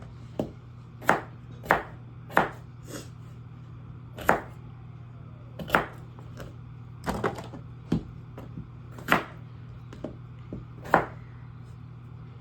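Kitchen knife cutting potatoes on a cutting board: sharp, irregular chops about one a second, a couple of them coming in quick pairs, over a steady low hum.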